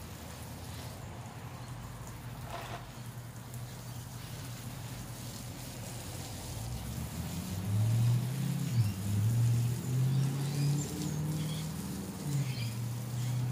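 Garden hose spray nozzle hissing steadily onto plants. About halfway through, a louder low hum that steps up and down in pitch joins it, with faint bird chirps near the end.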